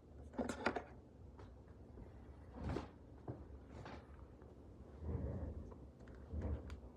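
Objects and packaging being handled by hand: a quick cluster of clicks about half a second in, then a few rustles and soft thumps.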